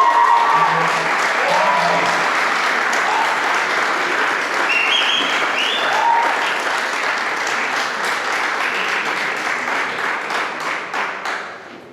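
Spectators applauding and cheering, with a few shouts over the clapping, which dies away near the end.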